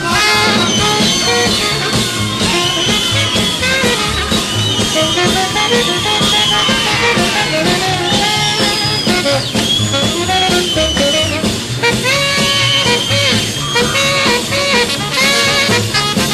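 Swing-style instrumental music led by brass and saxophone over a steady beat.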